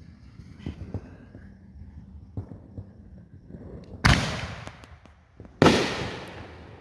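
Two loud consumer firework bangs about a second and a half apart, each dying away slowly in a long echo. A few light knocks come before them.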